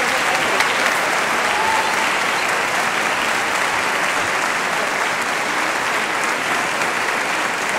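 Steady, continuous audience applause in a concert hall.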